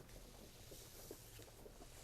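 Faint, steady gentle rain, with many small soft drop ticks falling at random.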